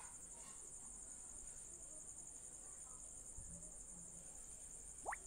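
Faint, steady high-pitched trilling of crickets, with a short quick rising whistle near the end.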